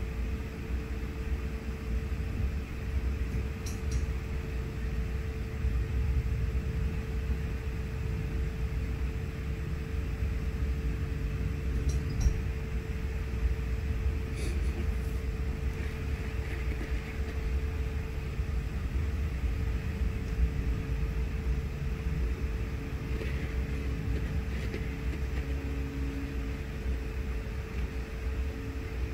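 Steady low mechanical rumble with a constant mid-pitched hum, and a few faint clicks.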